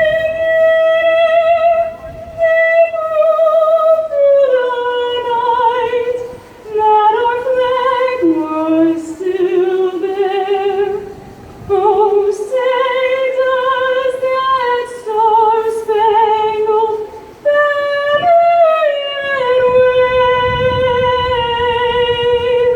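A woman singing solo with strong vibrato, holding long notes in phrases separated by short breaths.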